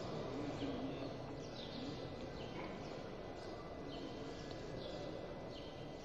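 Pause between verses of a live Quran recitation: low room noise of a seated mosque audience, with short high chirps of small birds every half second to a second.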